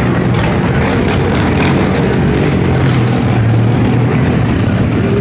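Several motorcycle engines running in street traffic, a loud steady low rumble.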